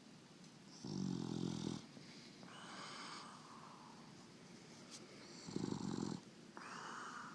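English Bulldog snoring in its sleep: two loud snores about four and a half seconds apart, each followed by a softer, breathy stretch.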